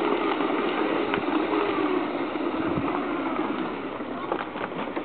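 Segway personal transporter's electric motor drive whining, the low whine wavering in pitch as it slows to park, over a steady rushing noise, with a few light clicks near the end.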